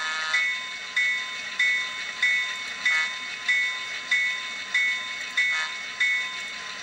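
Model-railroad locomotive bell sound played by an Arduino-based DCC decoder, ringing steadily with a strike about every 0.6 seconds.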